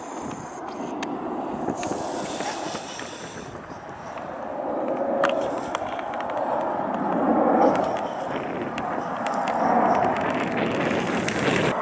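Jet engine noise of a Boeing 747 passing low overhead: a broad, rushing rumble with no clear pitch that grows louder about halfway through and stays loud.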